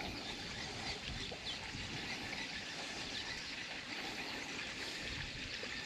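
Quiet outdoor ambience: a steady low hiss with a few faint bird chirps.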